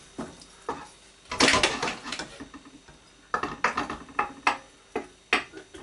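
A spoon scraping and knocking against a ceramic-coated frying pan as bacon lardons are spread and stirred in it, in irregular clatters: a cluster about a second and a half in, then a run of knocks and scrapes from about three seconds on.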